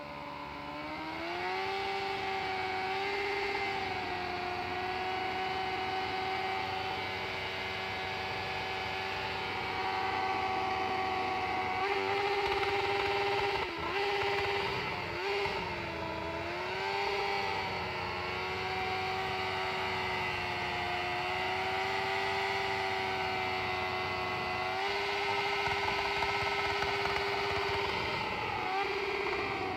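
Suzuki GSX-F inline-four motorcycle engine held at steady high revs through a short homemade welded exhaust, a sustained high-pitched drone. The revs dip briefly twice about halfway through, then settle back.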